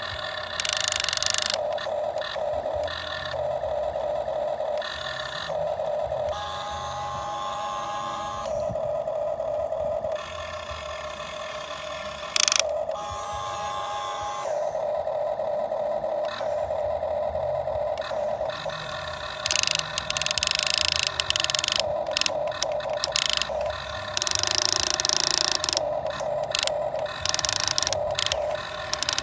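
Radio-controlled model excavator's small motors whining in stop-start spells as its arm and tracks move, with bursts of hiss over the top and one sharp loud click partway through.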